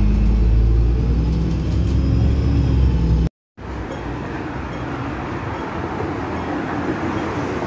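Low, steady rumble of a city bus's engine heard from inside the bus, cutting off suddenly about three seconds in. After a brief silence, steady city street noise follows.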